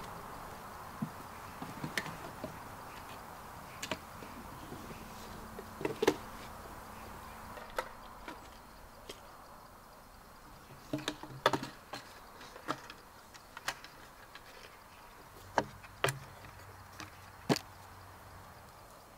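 Irregular light knocks and clicks, about a dozen spread unevenly, the sharpest about a third of the way in and again past the middle, over a faint steady hiss.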